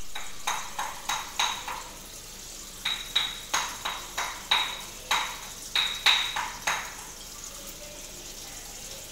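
A run of about fifteen sharp clinks of a hard object, each with a short bright ring, coming irregularly in small groups and stopping near seven seconds in, over a faint steady hiss.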